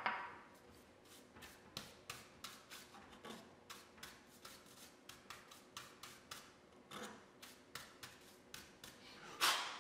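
Bristle bench brush sweeping wood shavings and dust off a board in quick, short strokes, about three a second, with a louder stroke near the end.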